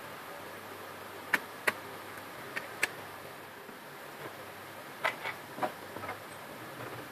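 Irregular sharp clicks and taps, several in quick pairs, over a faint steady hiss: small plastic and metal parts of a laser printer being handled and fitted.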